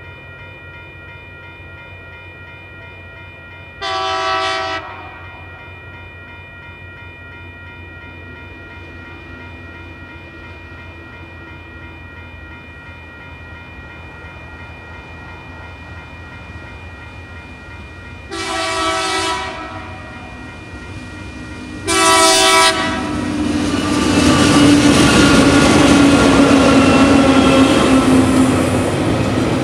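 Level crossing bell ringing steadily while a diesel freight train approaches, its horn sounding three short blasts: one about four seconds in and two close together later on. Near the end the TasRail TR-class locomotives and loaded bauxite and container wagons roll through the crossing, with loud wheel and rail noise.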